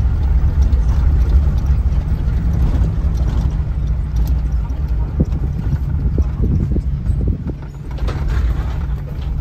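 Deep, steady rumble of a vehicle driving, with irregular knocks and rattles, most of them past the middle.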